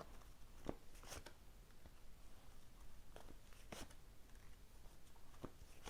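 Near silence, broken by about half a dozen faint, short rustles and taps of tarot cards being handled.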